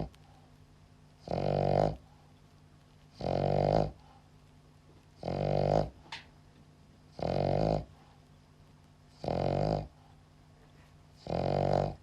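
A sleeping dog snoring: six short snores, evenly spaced about two seconds apart.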